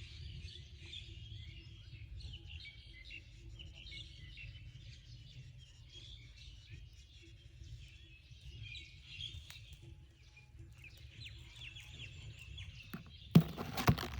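Small birds chirping and twittering continuously over a steady low rumble. Near the end, a couple of loud sharp knocks or clatters.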